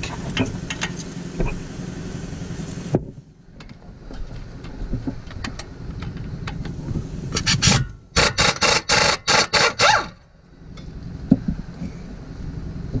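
Pneumatic air ratchet on a sway bar bushing bracket bolt, run in a string of about eight short bursts for two seconds near the end. Before that there are scattered light metal clinks from the tool and socket being set on the bolt.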